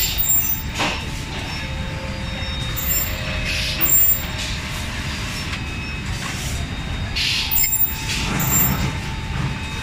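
Selective soldering machine running: a steady low mechanical rumble with several short hisses of compressed air, the loudest about four seconds in, and a faint steady whine.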